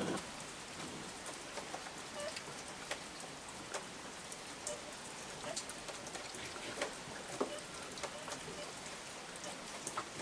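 Steady rain falling, with scattered sharp ticks of drops striking.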